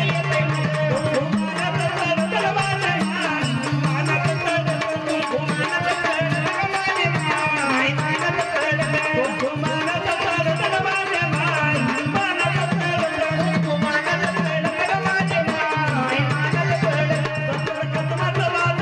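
Live Marathi folk devotional music: a wavering melody over a held low drone, driven by fast hand-drum beats and rattling, jingling percussion.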